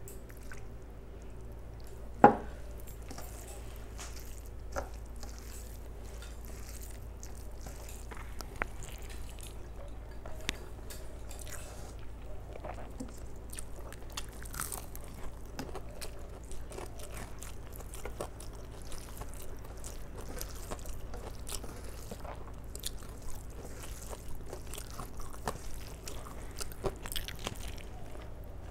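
Close-miked eating by hand: rice mixed with dal squelching and many small clicks from fingers and a steel plate, with chewing and light crunching. One sharp knock about two seconds in stands out above the rest.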